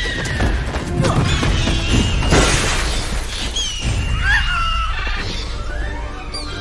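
Action-film soundtrack: music mixed with crashing impacts and shrill gliding cries.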